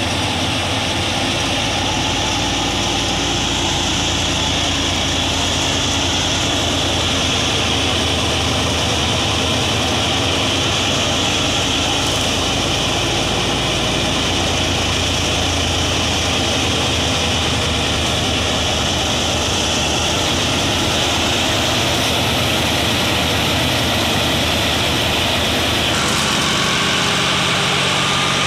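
Tractor-driven wheat thresher running steadily under load: a dense, continuous mechanical din of the threshing drum and belt drive with the tractor's diesel engine beneath it. Near the end the tractor engine comes to the fore, running at steady revs.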